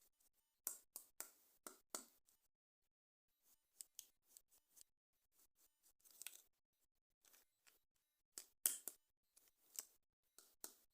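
Faint, short scissor snips cutting into toy packaging, coming in small clusters with quiet gaps between.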